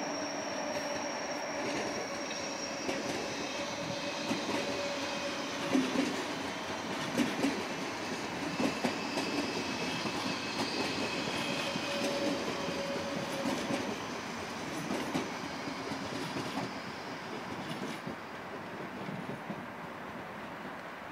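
Red DB Class 425 regional electric multiple unit rolling past. Its wheels click over rail joints and points, with several clicks in the middle, and thin steady squeal tones sound throughout. The noise fades toward the end.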